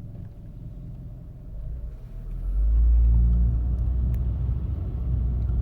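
Low rumble of a motor vehicle, growing louder about two and a half seconds in and staying up.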